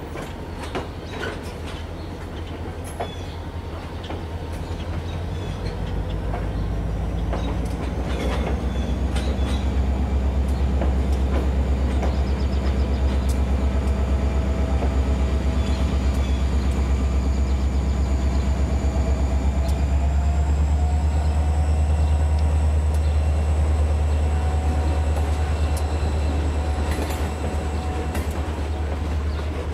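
N scale model trains running on the layout: a steady low motor hum that builds over the first several seconds, with sharp clicks from the wheels passing over rail joints and a faint high whine.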